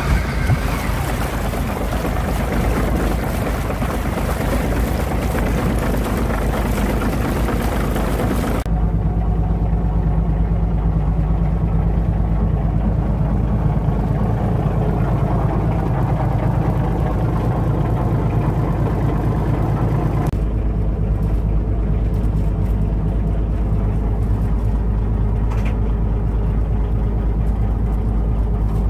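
Yamaha UF-28 fishing boat's engine idling steadily. For the first several seconds it is heard at the stern drive, with a loud hiss and splash of exhaust and water. After that it is a steady low hum.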